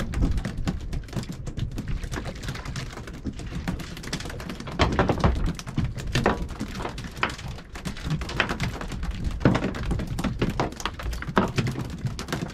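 Freshly caught mackerel flapping and thudding against the deck of a small boat: a run of sharp, irregular knocks starting about five seconds in, over a steady low rumble of wind.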